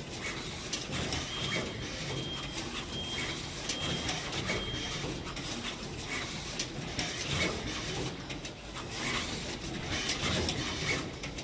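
Automatic wire-harness connector insertion machine at work: irregular mechanical clicks and clacks over a steady machine hum, with a run of short high beeps between about one and five seconds in.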